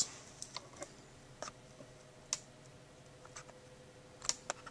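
Faint, scattered light clicks and taps, about seven of them at uneven intervals, with a faint steady tone coming in about a second and a half in.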